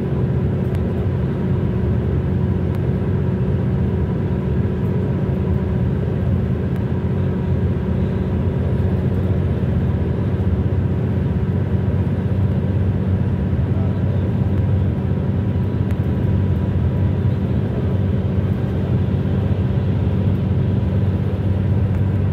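Steady road noise of a car at highway speed, heard from inside the car: a low rumble of tyres and engine with a constant hum, even throughout.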